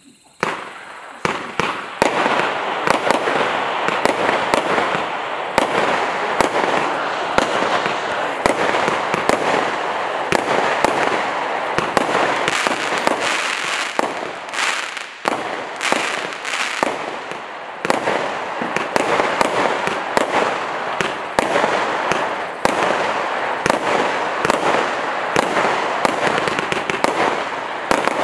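Monkey Madness 216-shot compound firework cake firing. It starts suddenly about half a second in, then gives a rapid, unbroken stream of launches and bursts with dense crackling.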